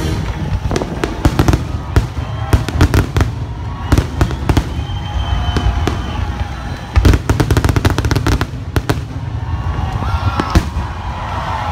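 Fireworks display with aerial shells bursting in quick volleys of bangs and crackling. The loudest bang comes about seven seconds in.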